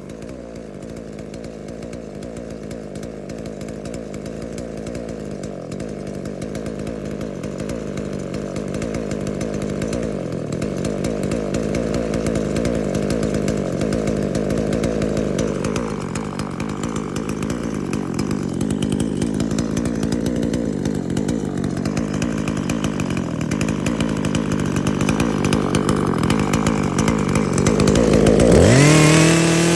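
Husqvarna 142 two-stroke chainsaw idling steadily, then briefly revved up and let fall back near the end.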